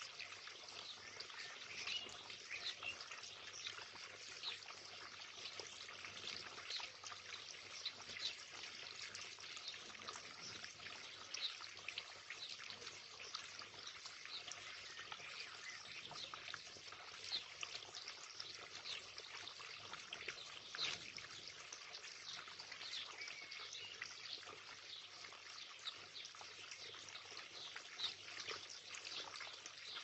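Small garden water feature trickling and splashing steadily into a stone pool, a continuous patter of little splashes. It is heard through a Ring security camera's microphone.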